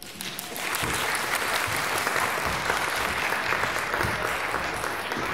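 Audience applauding, a steady mass of clapping that starts abruptly and keeps on evenly throughout.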